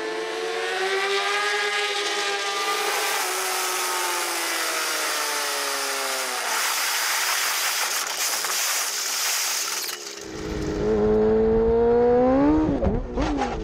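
Four-stroke racing motorcycles at full race pace: a pack of bikes passes with the engine notes falling away. Then, heard from an onboard camera with heavy wind rumble, one bike's engine revs up steadily and then dips and rises quickly a couple of times near the end.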